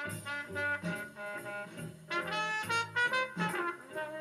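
Instrumental background music: a jazzy tune led by brass horns playing a melody of held notes.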